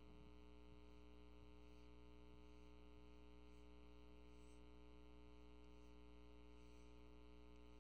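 Near silence: a steady low mains hum, with a few very faint scratchy strokes of a marker drawing on a whiteboard.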